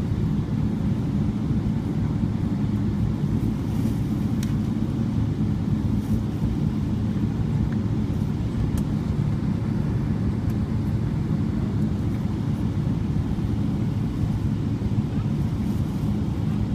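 Steady low rumble of a Boeing 777-300ER taxiing, heard inside the passenger cabin, its GE90-115B engines at taxi power.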